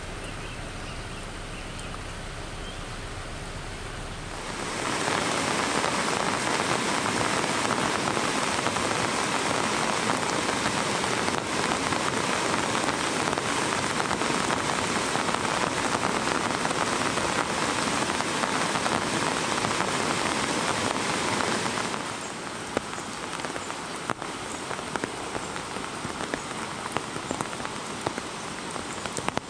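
Steady water noise at first. From about four seconds in, the loud, steady rush of a rain-swollen river in white-water flood takes over. Near the end this drops to a softer water sound with many small raindrop ticks on wet leaves.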